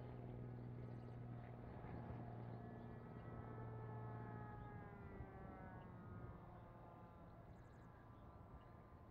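Kaos 60 radio-control model airplane flying at a distance, its motor a faint drone whose pitch slides up and down as the plane passes and turns. It grows a little quieter after about six seconds.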